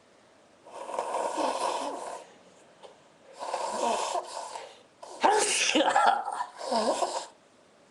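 A person sneezing: two long, drawn-out voiced sounds, then a sudden, loud sneeze about five seconds in, followed by a shorter one near the end.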